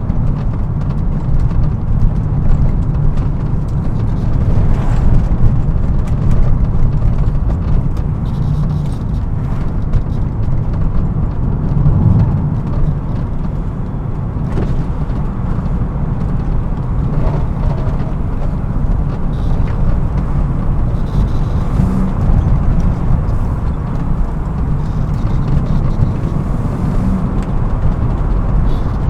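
BMW E36 M3 on the move: its straight-six engine running under steady throttle, mixed with heavy low road noise, swelling a little in loudness now and then.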